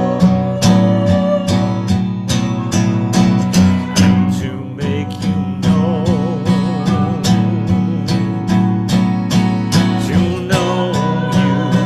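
Acoustic guitar strummed in a steady rhythm, accompanying a worship song between its sung lines.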